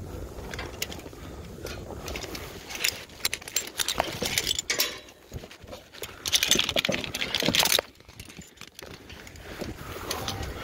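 Small metal pieces clinking and jangling in irregular clicks and rattles, loudest about six to eight seconds in.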